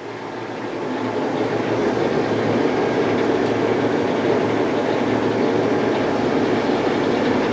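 A 1977 Blanchard No. 20-36 vertical rotary surface grinder running under power, a steady mechanical noise that swells over the first two seconds and then holds.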